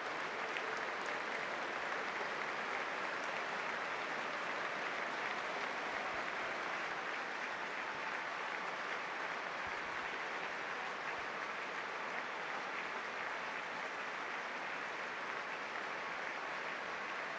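Football stadium crowd applauding steadily.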